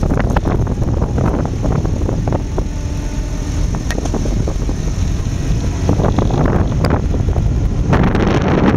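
Morris Light Reconnaissance Car Mk 2 on the move, its four-cylinder petrol engine running under heavy wind buffeting on the microphone, with scattered knocks and rattles from the hull. The noise grows louder about eight seconds in, as the car reaches a gravel track.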